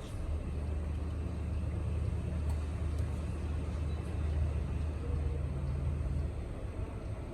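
A low, steady mechanical rumble, like an engine running. It fades a little near the end.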